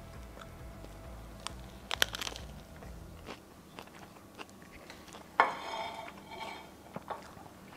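A person bites into a burger and chews, with small crunchy clicks from the bite about two seconds in. About five and a half seconds in, the loudest sound: a ceramic plate set down with a clatter on a stone countertop, followed by a few lighter knocks.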